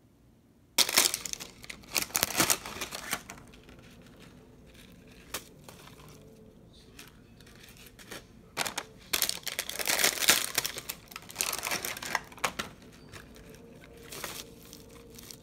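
Plastic packaging of seasoned laver (gim) crinkling while the crisp seaweed sheets are handled. The crinkling comes in irregular bursts, starting about a second in and loudest again around ten seconds in.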